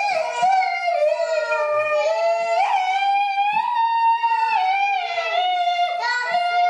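A young boy's high voice vocalising without words: long held notes that glide slowly up and down in pitch with hardly a break.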